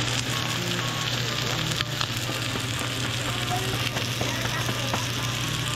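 Steak searing in a hot frying pan: a steady sizzle with a few small pops, over a steady low hum.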